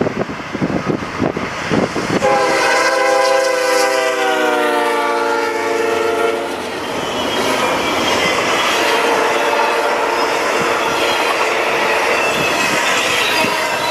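Freight locomotive's multi-chime air horn sounding one long blast about two seconds in, its pitch sagging slightly, after gusty wind on the microphone. Once the horn stops, the train keeps passing with steady rail and wheel noise and a faint high wheel squeal.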